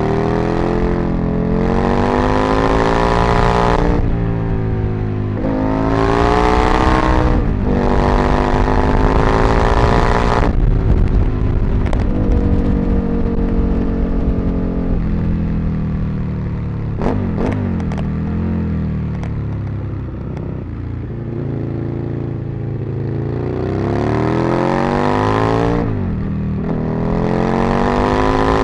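Aprilia RSV Mille's 998 cc V-twin engine pulling hard through the gears: the pitch rises, breaks at each upshift and rises again, eases off to a lower, steadier run in the middle, then climbs through the gears again near the end.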